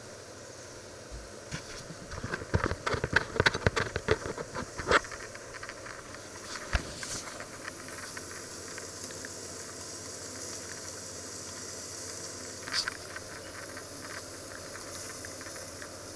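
Food sizzling and steaming under the lid of a stainless steel pan on an induction hob: a steady hiss, with a dense flurry of crackles and pops about two to five seconds in and a few single pops later.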